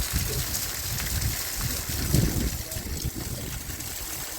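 Steady rain hiss with water trickling, under irregular low knocks and rumbles that are loudest about two seconds in.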